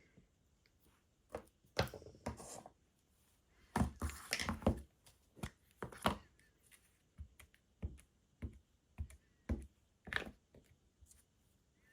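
Paper and craft supplies being handled on a desk: irregular taps, clicks and knocks with a few short paper rustles.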